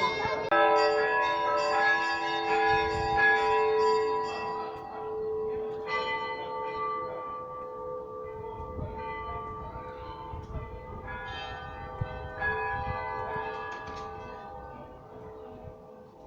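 Church bells of a Russian Orthodox belfry ringing, several bells struck together. Fresh strikes come about half a second in, around six seconds in and twice near eleven to thirteen seconds. Between strikes the bells ring on, fading away toward the end.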